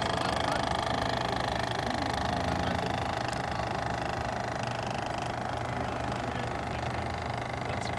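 Midwest Heritage single-cylinder oscillating steam engine of a model steam boat running steadily under way.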